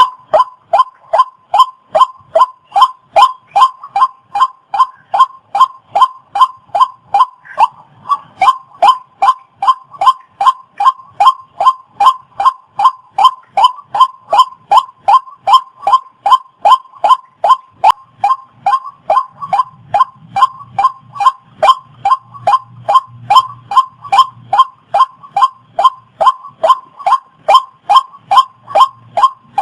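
Waterhen calling: one harsh, slightly falling note repeated steadily and monotonously, about two calls a second.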